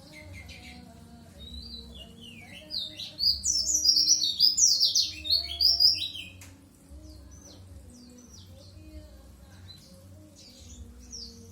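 Young white-eye (pleci dakun) practising its song: soft scattered chirps, then a loud rapid run of high twittering notes from about three to six seconds in, then soft chirps again.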